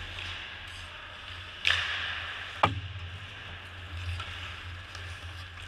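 Ice hockey play heard from the goalie's position. About a second and a half in there is a sudden scrape that fades over half a second, and a second later a single sharp knock, over a steady low hum.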